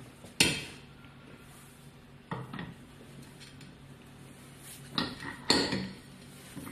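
Clanking metal as an electric hub motor is set into a dynamometer's steel fixture: a sharp clank near the start, another a couple of seconds later, and two close together near the end.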